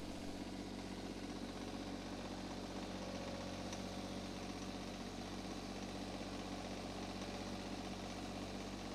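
Engine of an RK24 compact diesel tractor running steadily as the tractor drives along, heard from the operator's seat.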